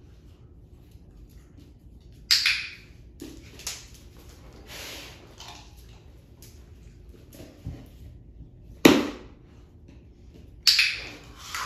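A few short clatters and knocks on a hard laminate floor as a puppy moves about and steps onto a small wooden board, with dry kibble dropped onto the floor. The sharpest knock comes about nine seconds in.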